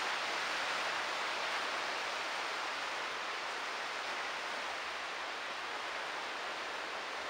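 Steady, even rushing of sea surf and wind, with no separate events standing out.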